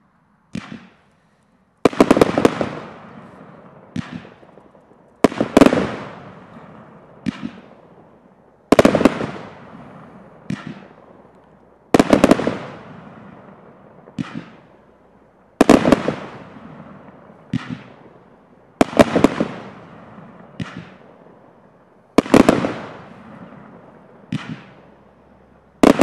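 Celtic 'Bang Tidy' firework firing aerial shells that burst in the sky in a steady rhythm. A loud report comes about every three and a half seconds with a quieter one in between, and each dies away over a second or so.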